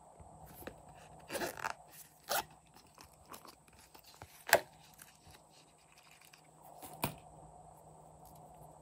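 A hard plastic butterfly-shaped case being handled: a few sharp plastic clicks and knocks with light rustling in between, the loudest click about halfway through.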